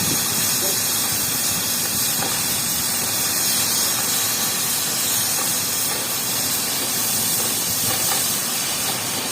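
Gas welding torch flame burning with a steady hiss.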